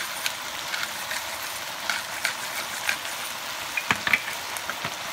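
Stir-fried vegetables sizzling in a wok over high heat, with scattered short clicks from a pepper grinder being turned over the pan. A few sharper knocks come about four seconds in.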